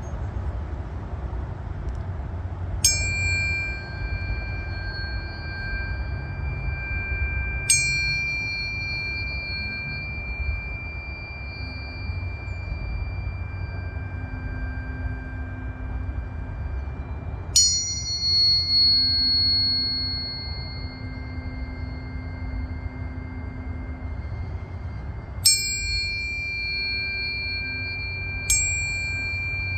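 Tuning forks tuned to C, G and F, struck one after another, five strikes in all. Each rings on as a steady pure tone that fades slowly, the notes overlapping, including the perfect fifth.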